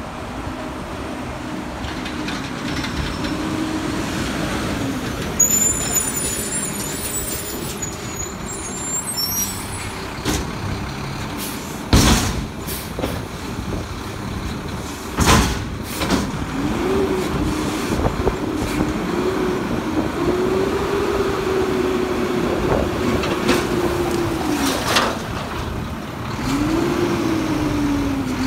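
Mack MRU front-end loader garbage truck's diesel engine running as it pulls up, with a few short sharp air-brake releases. Then the engine revs up and holds a steady pitch for several seconds to drive the hydraulics, and revs again near the end as the front arms raise a dumpster over the cab.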